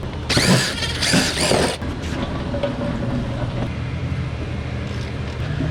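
Toyota Camry's engine running: loud and uneven for the first couple of seconds, then settling into a steady idle.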